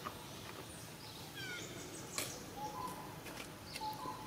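Birds calling over a steady outdoor hiss: a quick falling run of chirps, then a few short whistled notes, with a sharp click partway through.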